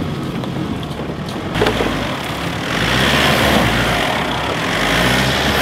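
Engine of a Ford ute working under load as it crawls up a steep, rocky 4WD track. It gets suddenly louder about a second and a half in, and louder again around three seconds in.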